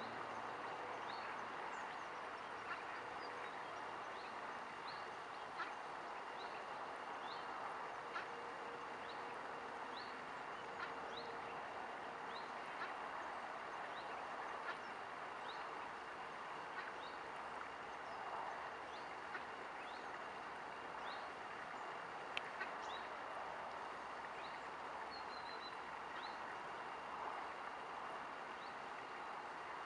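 Outdoor waterside ambience: a steady hiss-like background with a bird repeating a short, high, falling chirp about once a second, over a faint steady high tone.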